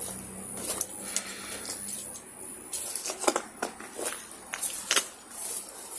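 Footsteps through dry undergrowth and debris, with leaves crackling and several sharp twig snaps, over a steady high-pitched whine.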